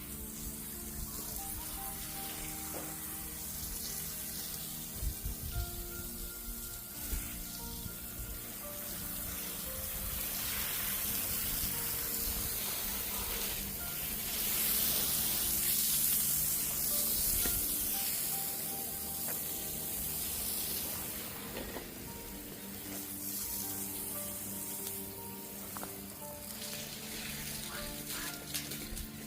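Background music playing over a steady hiss that swells and fades around the middle.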